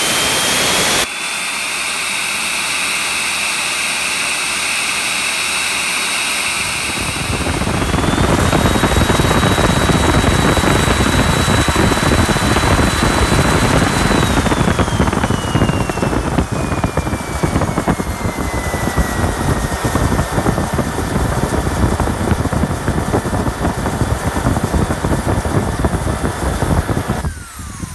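Small 50 mm model jet turbine (13 N thrust) running on a test stand, with a high whine over a jet roar. About seven seconds in it spools up: the whine rises and the roar grows louder and holds. From about fourteen seconds the whine slides down to a steady idle, and near the end the turbine is shut off and winds down with a falling whine.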